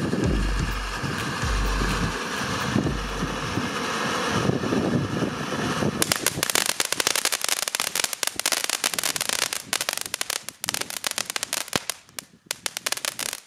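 Ground firework fountain hissing steadily as it sprays sparks, then about six seconds in switching to a dense, rapid crackle that runs on. The crackle thins briefly near the end.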